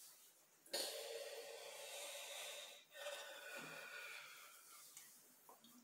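A distressed man breathing heavily into his hands: two long, noisy breaths in a row, the first starting about a second in.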